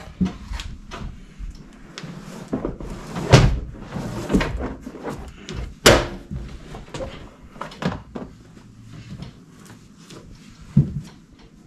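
Thick rubber floor mat being unrolled across a van's metal floor: irregular thuds, knocks and scuffs as it flops down and is pressed flat, with knees and shoes knocking on the floor. The two loudest knocks come about three and a half and six seconds in.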